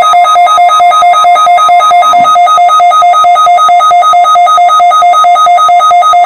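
A NOAA weather radio receiver's electronic alert alarm, a loud beeping that switches rapidly back and forth between two pitches, low and high. It signals that the receiver has picked up an alert broadcast, here the required weekly test.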